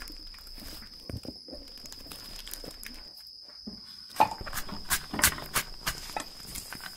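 Kitchen knife cutting garlic on a wooden cutting board: a few soft knocks early, then a quick run of sharp knocks on the board in the second half. A steady high-pitched insect trill runs underneath.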